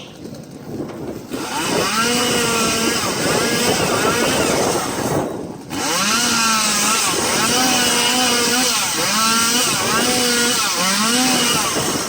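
Two-stroke chainsaw running at high revs and cutting, its pitch rising and falling with the throttle. It comes up about a second in, drops away briefly about five seconds in, then revs up again.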